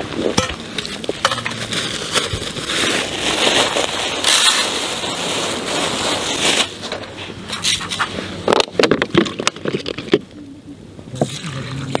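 Plastic bag crinkling and rustling as rice is tipped from it into a mesh strainer set in a metal bowl: a dense crinkling hiss for a few seconds, then scattered sharp rustles and clicks.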